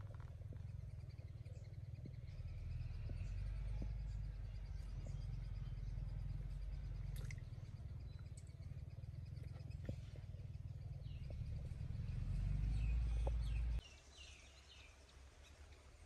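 Outdoor riverside ambience: a low steady rumble that cuts off sharply about 14 seconds in, with a few light clicks and faint bird chirps near the end.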